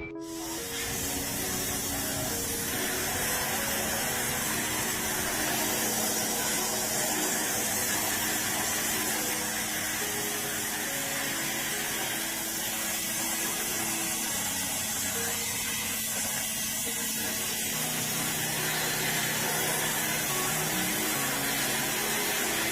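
Steady hissing spray of a parts-cleaning tool, with background music underneath.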